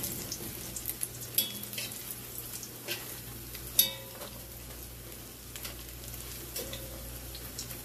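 Saltfish fritters sizzling and crackling in hot cooking oil in a metal pot. A metal fork clicks against the pot a few times as they are turned, most sharply about four seconds in.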